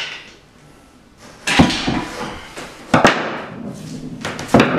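Three sharp metal clanks about a second and a half apart, the first the loudest, as the clutch pressure plate and friction disc are pulled off a Jaguar E-Type engine's flywheel and handled.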